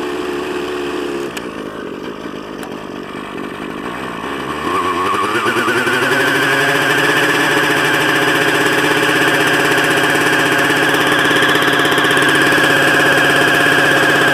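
Nitro glow-fuel engine of a radio-controlled helicopter running just after starting. About five seconds in it rises in pitch and level, then holds a steady high-pitched whine.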